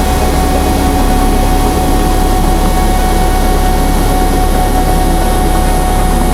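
Grob G120TP trainer's turboprop engine running steadily: a constant whine over a low rumble.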